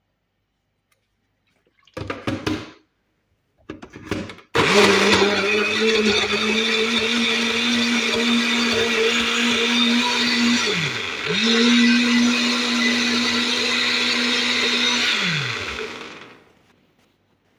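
Electric blender puréeing fruit and water. Two short bursts come first, then a long steady run that spins down briefly partway through, starts again, and winds down near the end.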